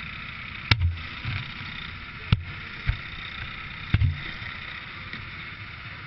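Four sharp knocks and thumps of the small camera being handled or bumped, the first about a second in and the last near the middle, over a steady background noise.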